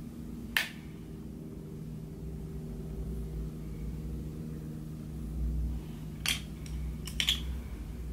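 Steady low electrical hum of room tone, with a sharp click about half a second in and a few more short clicks near the end.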